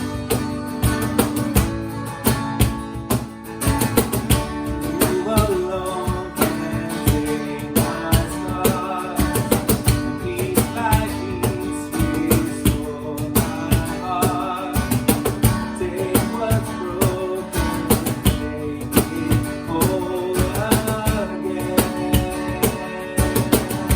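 Worship band playing: strummed acoustic guitar over a steady beat, with a melody line weaving above the chords from a few seconds in.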